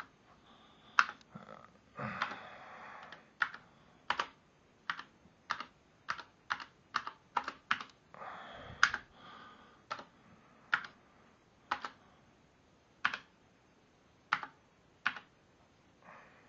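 Apple IIGS keyboard being typed on slowly, one key at a time: separate, unevenly spaced key clicks, about one or two a second, as a short BASIC program is entered one-handed.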